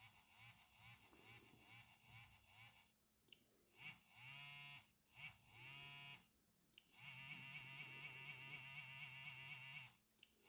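Siemens CXT65 mobile phone ringtones playing quietly through the phone's speaker: short electronic melody phrases separated by brief gaps, then a rapidly warbling tone held for about three seconds near the end.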